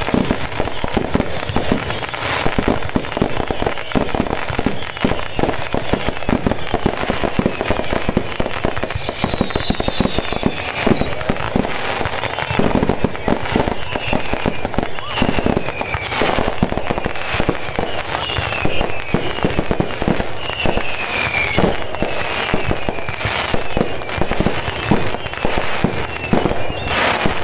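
Fireworks and firecrackers going off without pause: a dense, rapid crackle of small bangs, with short falling whistles from about nine seconds in.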